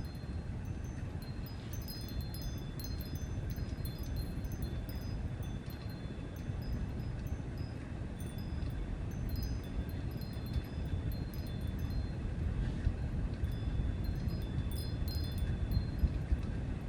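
Small birds chirping: short, high, clear notes in scattered clusters, over a steady low rumble.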